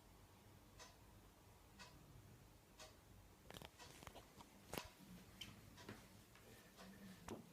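A clock ticking faintly, about one tick a second, with a few small clicks and rustles around the middle.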